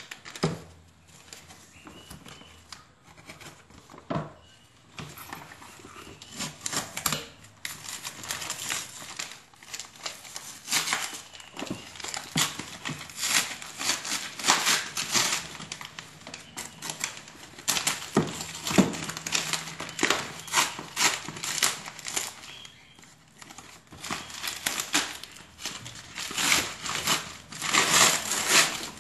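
Paper parcel wrapping being torn and crumpled off a cardboard box by hand, in irregular crackling rustles, quieter for the first few seconds and busier and louder after that.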